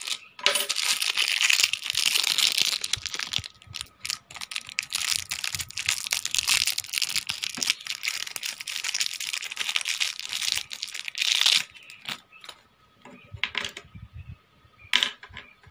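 Clear plastic wrapping crinkling as a small circuit board is unwrapped by hand, dense and continuous for about eleven seconds, then a few sparse rustles and clicks near the end.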